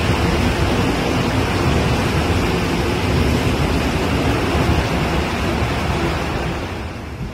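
Seoul Line 3 subway train running through the platform behind closed screen doors: a steady rumble and rush of wheels and traction motors that begins to fade near the end.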